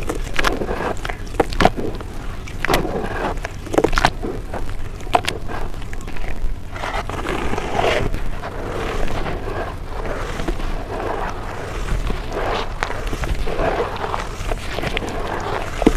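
Close-miked crunching of dry brown dirt. Sharp separate cracks come in the first half, and denser, softer gritty crushing follows.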